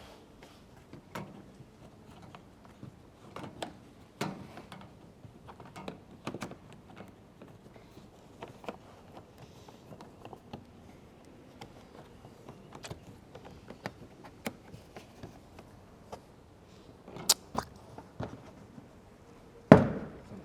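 Scattered clicks and knocks of hands handling things in a small room, irregular and mostly faint, with a couple of sharper knocks near the end.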